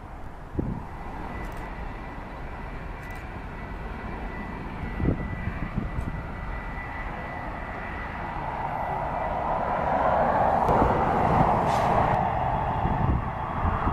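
Jet engines of a Boeing 757, Rolls-Royce RB211 turbofans, running on the runway and growing steadily louder in the second half as they spool up toward takeoff power. A steady high whine sits over the roar early on.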